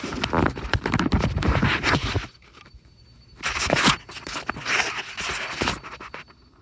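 Handling noise from a phone camera being gripped and moved: hands rubbing, scraping and knocking against the phone right at the microphone. It comes in three bursts, a long one of about two seconds at the start and two shorter ones in the second half.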